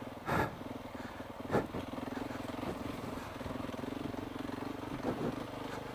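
KTM 690's single-cylinder engine idling steadily, with two short rushes of noise in the first couple of seconds.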